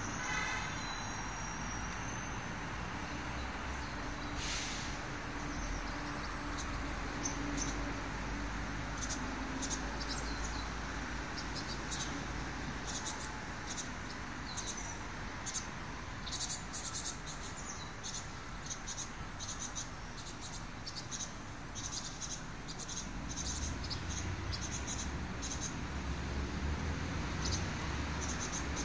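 Outdoor park ambience: a steady low rumble of background noise, with many short, high chirps repeating from about nine seconds in until near the end.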